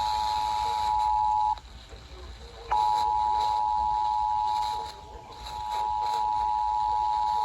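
NOAA Weather Radio warning alarm tone: a single steady 1050 Hz tone heard over radio hiss, signalling that a warning broadcast follows. It breaks off about a second and a half in and comes back about a second later.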